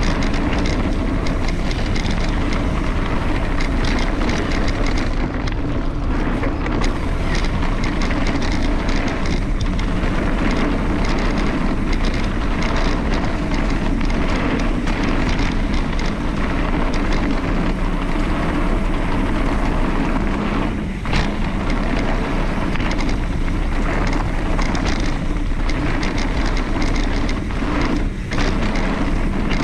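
Mountain bike descending a dirt trail: steady wind rush on the microphone, with frequent rattles and knocks from the bike over rough ground.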